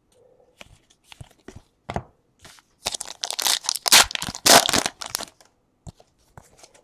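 Topps Gold Label baseball card pack wrapper being torn open by hand and crinkling. A few light crackles come first, then a run of loud tearing and crinkling in the middle, tapering off to a few clicks.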